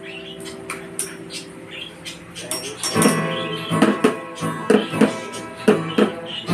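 Acoustic guitar strummed along with a plastic bucket beaten with sticks as a drum. A chord rings out and fades at first, then from about three seconds in strumming and bucket hits go on in a steady rhythm.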